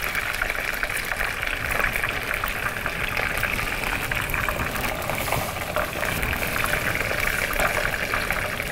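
A pot of water boiling steadily on the stove, a continuous bubbling with many small crackles.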